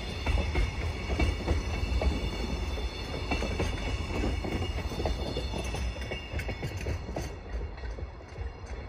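Loaded JR Freight container flatcars rolling past on the rails: a steady low rumble with wheels clicking over the rail joints. It grows somewhat quieter near the end as the last wagon goes by.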